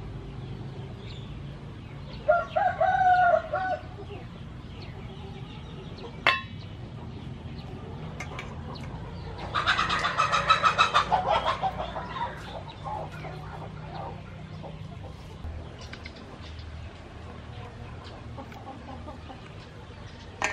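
Chickens calling: a rooster crows briefly about two seconds in, and a louder, rapidly pulsing call comes around ten seconds in and lasts about two seconds.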